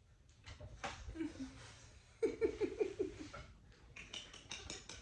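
A toddler laughing: a short call about a second in, then a quick run of laughs a little past two seconds, and more giggling near the end.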